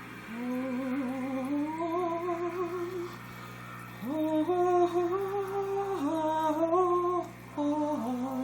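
A single voice singing a wordless melody in three phrases of held, stepping notes, over a steady low hum.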